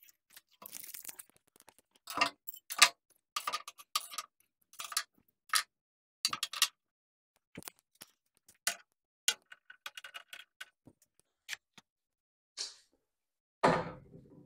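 Metal tools and tool holders handled and set down on a stainless steel shelf and tool rail: a long irregular run of sharp clicks and clanks, with a heavier clunk near the end.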